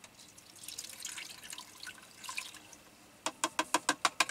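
Bone broth poured from a carton into an Instant Pot's inner pot: a light splashing pour that turns, in the last second or so, into quick even glugs, about seven a second.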